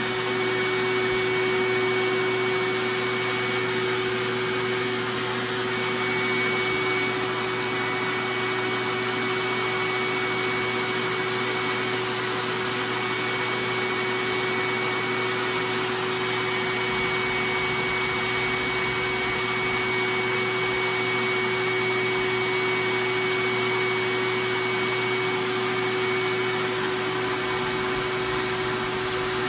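Steady motor hum with a constant low whine, with faint rubbing of hands pressing carpet down along a seam.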